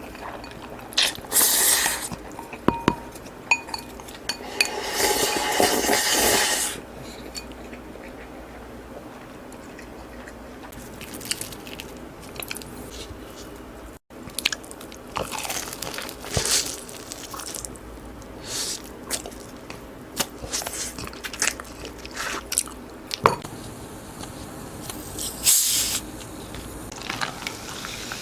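Close-miked eating: crunchy bites and chewing, with short wet clicks. A longer run of loud crunching comes in the first few seconds, and the sound breaks off briefly about halfway before the chewing carries on.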